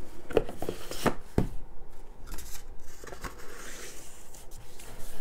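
Plastic disc cases and a cardboard box set being handled: a few sharp clacks in the first second and a half, then softer sliding and rubbing.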